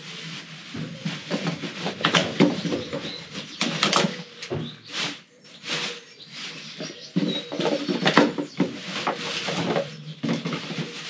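A black plastic bin bag and the litter packaging inside it rustling and crinkling in irregular crackles as a litter-picker grabber rummages through it and pulls items out.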